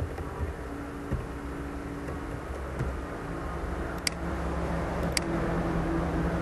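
Steady low hum and hiss of background noise, with two sharp clicks a little over a second apart past the middle.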